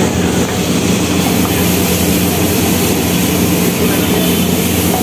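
A steady, loud roar with a low hum under it, even throughout.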